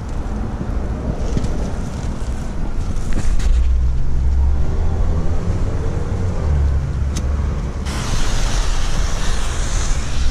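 Low rumble of a motor vehicle running nearby. About eight seconds in, a steady hiss starts suddenly: a lit smoke-bomb fuse spitting sparks.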